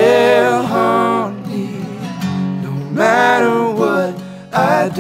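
Wordless group harmony singing over acoustic guitar and resonator guitar. The voices swell in three phrases: a long one at the start, another about three seconds in, and a short one near the end.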